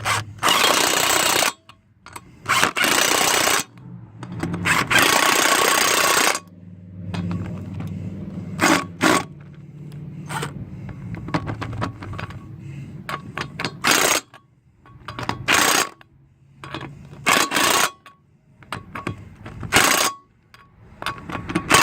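Lug nuts being tightened onto a car wheel with a hand wrench: bursts of metallic ratcheting and scraping, a few long ones first and then shorter ones every second or two.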